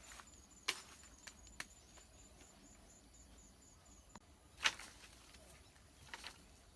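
A few sharp, isolated snaps and knocks, the loudest about two-thirds of the way through, over a faint high-pitched chirping pulse of about four a second that stops about four seconds in.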